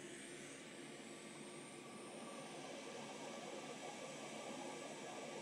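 Hot air rework station blowing: a faint, steady airy hiss that grows a little louder over the second half.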